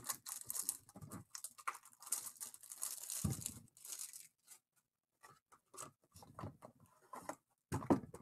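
Plastic shrink wrap being torn and crinkled off a sealed trading card box through the first few seconds, then scattered light taps and rustles as the cardboard box is opened and handled.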